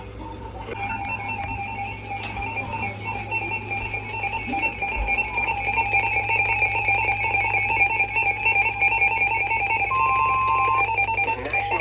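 Emergency Alert System two-tone attention signal: a steady alarm of two tones sounding together (853 and 960 Hz), starting just under a second in and growing louder. It signals that an emergency warning message follows.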